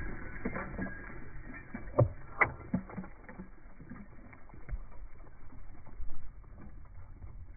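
Bits of debris and grit thrown up by the cannon's blast pattering down onto gravelly ground as scattered light ticks, with a few sharper ticks about two seconds in.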